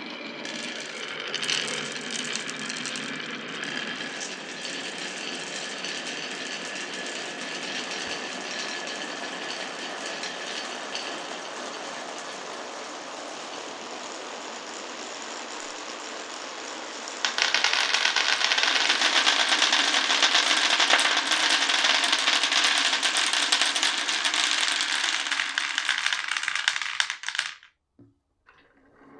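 Glass marbles rolling and rattling along a wooden marble run, a continuous dense clatter that gets louder about seventeen seconds in and cuts off abruptly near the end.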